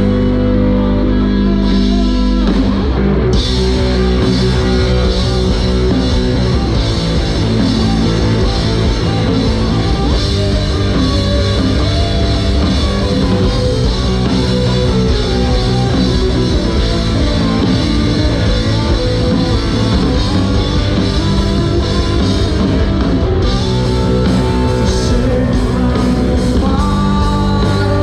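Live rock band playing loudly, led by electric guitar with bass and drum kit. The full band with crashing cymbals comes in about three seconds in, after a sparser guitar opening.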